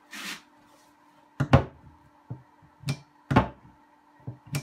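Wooden cupboard door being opened and shut on its newly fitted brass ball catch, giving about seven sharp knocks as it meets the frame, after a short burst of noise at the start.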